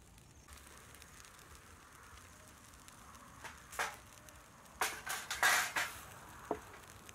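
Whole fish grilling on a wire rack over charcoal embers: a faint steady hiss, broken by several short sizzling spurts around the middle, the loudest a little past halfway.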